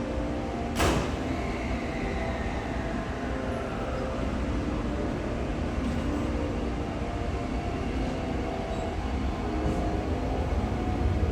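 Electric train moving at a station platform: a steady low rumble, with a motor whine that falls in pitch over a few seconds as the train slows, after one sharp click about a second in. The rumble grows louder near the end.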